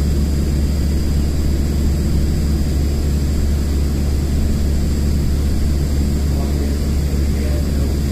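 Steady low rumble of an airport apron bus heard from inside its cabin as it drives, with a faint steady high-pitched whine above it.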